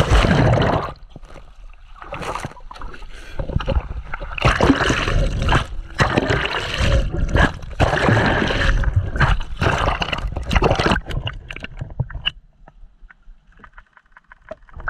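Water splashing and rushing in loud, irregular surges with a low rumble, dying down to faint noise about twelve seconds in.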